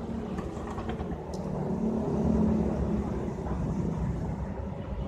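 Custom 300cc two-cylinder Suzuki Satria FU engine with a screamer firing order, running. It is revved up once around two seconds in and settles back.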